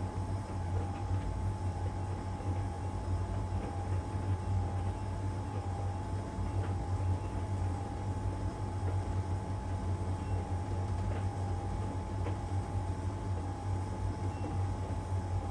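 LG heat pump dryer running mid-cycle, its drum turning the load: a steady low hum with a thin, steady whine above it.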